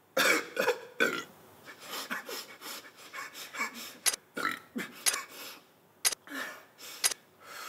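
A man burping again and again after gulping down a 500 ml cola: a string of short, irregular belches. About four seconds in, sharp ticks start, about one a second.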